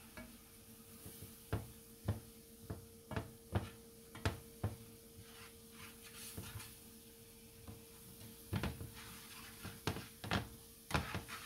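Wooden slotted spatula stirring a thick flour-and-cream sauce in a frying pan, knocking and scraping against the pan in irregular strokes.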